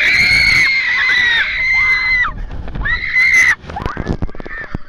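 Log-flume riders screaming through the plunge: one long, high scream for about two seconds, then a shorter second scream. Water splashes over the boat near the end.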